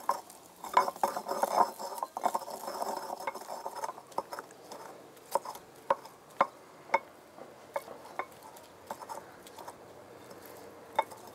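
Stone pestle grinding and pounding onion pieces in a clay molcajete with a ridged interior: rough scraping for the first couple of seconds, then a run of sharp separate knocks, about two a second, as the stone strikes the clay bowl.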